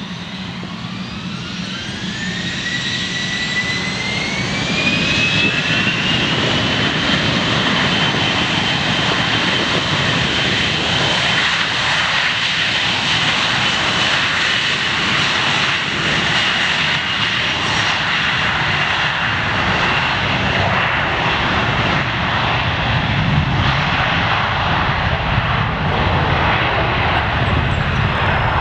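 Frontier Airlines Airbus A320-family jet's engines spooling up to takeoff thrust: a whine rising in pitch over the first six or seven seconds, then steady loud jet engine noise with a held whine as the airliner accelerates down the runway.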